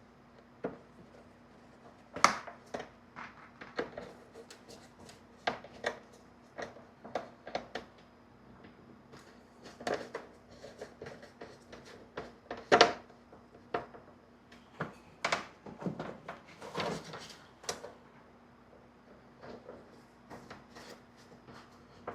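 Irregular clicks and knocks of hand tools, screws and plastic parts being handled while a speaker is fitted and screwed into a personal watercraft's plastic panel, the sharpest knock about thirteen seconds in.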